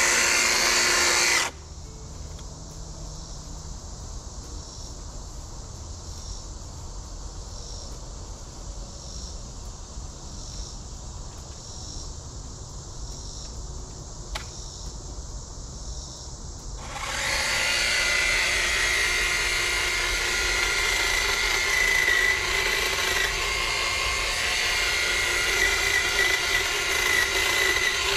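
Kobalt 80V brushless cordless hedge trimmer running, its dual-action blades cutting brush. It stops about a second and a half in, leaving a quieter stretch with one sharp click, then starts up again about seventeen seconds in and keeps running.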